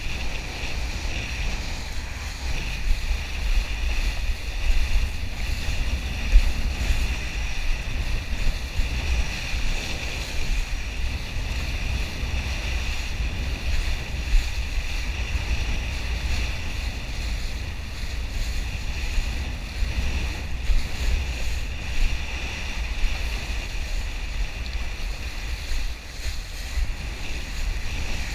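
Wind rumbling on the microphone over the steady rush and spray of a kiteboard planing across choppy water, with small uneven surges as it hits the chop.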